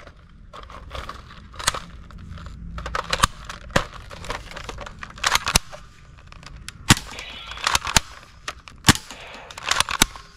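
Toy Dragunov SVD sniper rifle firing at targets: a dozen or so sharp shots at irregular intervals, a few of them much louder than the rest.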